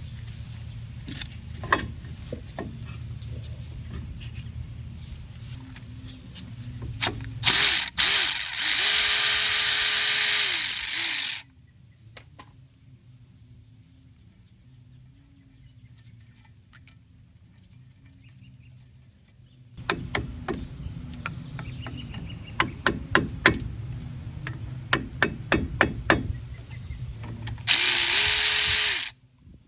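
A cordless power tool drives a socket on a rusted front brake caliper bolt of a 2003 Ford F350. It runs in two bursts: a long one about eight seconds in and a short one near the end. Between the bursts come spells of regular ratchet-like clicking.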